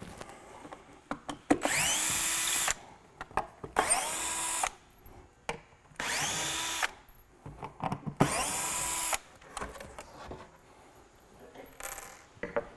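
Cordless drill backing out the screws that hold a shipping cleat to the cabinet, in four short runs of about a second each. Each run rises in pitch as the motor spins up, then holds steady. Small clicks and knocks come between the runs as the bit is moved from screw to screw.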